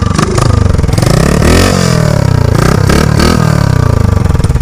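Honda Wave 110 single-cylinder four-stroke engine with an open racing carburettor, running on a homemade drag bike and revved twice, the pitch rising and falling each time.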